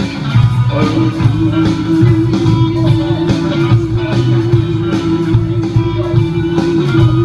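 Instrumental stretch of a blues-rock karaoke backing track: guitar over a steady drum beat, with one long note held from about a second in until near the end.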